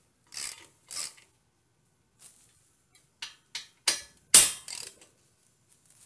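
Short, irregular bursts of metallic clicking and clinking, the loudest about two-thirds of the way through, as a steel mounting bolt is put through the mount and threaded into a Brembo front brake caliper.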